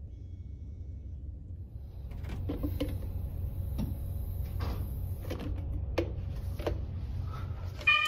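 A smoke detector tester pole's plastic cup knocking and clicking against a ceiling smoke detector about seven times, over a steady low hum and a faint high hiss. A brief loud horn-like tone sounds right at the end.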